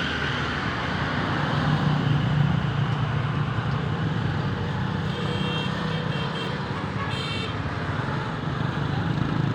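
Road traffic: vehicle engines rumbling steadily, swelling about two seconds in, with a few short high-pitched beeps about halfway through.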